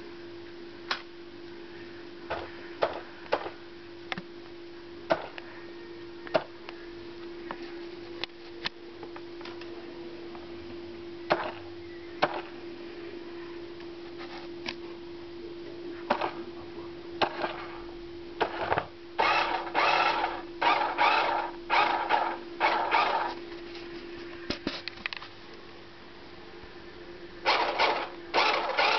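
Battery-powered 1:16 radio-controlled toy Porsche Cayenne, its small electric drive motor and plastic gears whirring in a series of short bursts as the car drives in spurts, mostly in the second half. Scattered sharp clicks throughout, over a steady hum that fades out near the end.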